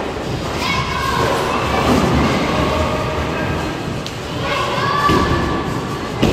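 Bowling alley din: balls rolling and thudding on the lanes, with voices of other players in the background. Right at the end, a bowling ball lands on the lane with a sharp thud as it is released.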